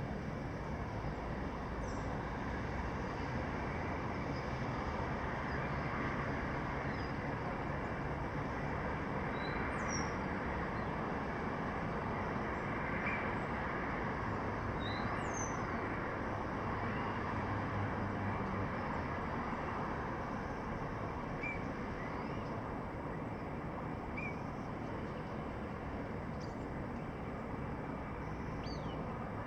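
Steady city traffic noise with short, high bird chirps scattered through it every couple of seconds.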